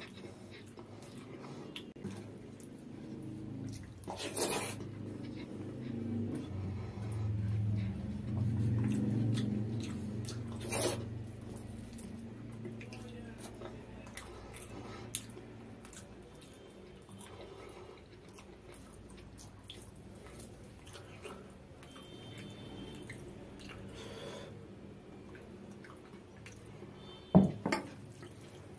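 Close-miked chewing of rice mixed with dal, eaten by hand, with wet squishing mouth sounds and a few sharp wet smacks, the loudest pair near the end.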